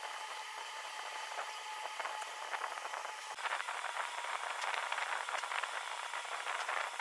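Graphite pencil scratching on paper during shading, as short rapid strokes that grow denser about three seconds in. A faint steady hum runs underneath.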